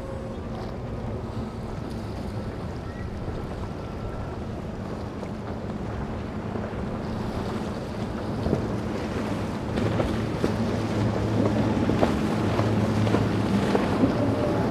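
Outboard-powered center-console boat running at speed, its engines giving a steady low drone that grows louder through the second half as it comes closer. Splashing from the wake and short slaps of the hull on the water join in from about halfway through.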